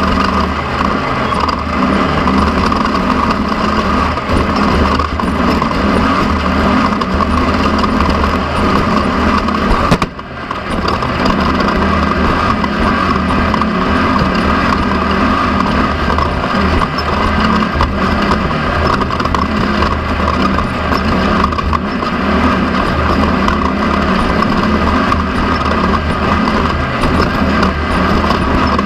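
Off-road race car engine running hard under load, heard onboard with steady rattling and driving noise. About ten seconds in there is a sharp knock, and the engine sound dips briefly before picking up again.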